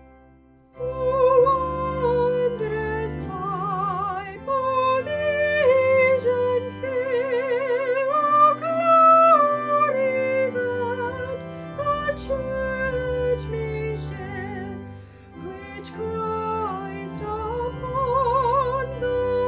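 A solo female voice singing a slow sacred piece in a classical style with wide vibrato, accompanied by organ. It comes in about a second in, after a brief pause.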